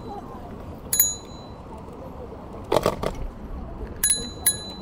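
Bicycle bell rung while riding: one ding about a second in and two quick dings near the end. A brief clatter about three seconds in, over steady riding noise.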